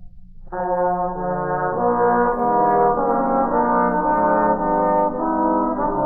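Brass ensemble playing a slow instrumental gospel arrangement in long held chords, coming in about half a second in after a brief pause. Transferred from a worn vinyl LP.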